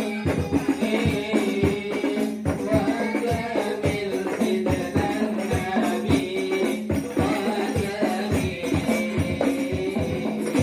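Hadrah ensemble playing: rebana frame drums beating a steady, quick rhythm under voices singing, the music stopping right at the end.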